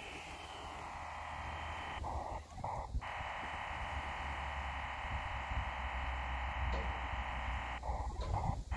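VARA FM modem data being sent and received over the Icom IC-705 during a Winlink email session on 2 meters: a steady hiss of data noise with a sharp upper edge, broken twice by brief pauses, about two seconds in and near the end. Low wind rumble underneath.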